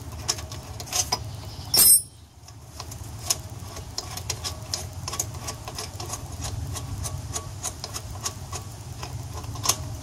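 Socket ratchet clicking in a steady run of ticks, a few per second, as a bolt is backed out of a motorcycle's exhaust bracket. There is one sharp metallic clack about two seconds in.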